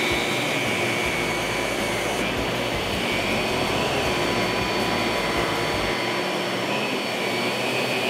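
Miele Swing upright vacuum cleaner running steadily, a rushing airflow with a high motor whine that dips and rises slightly in pitch about halfway through.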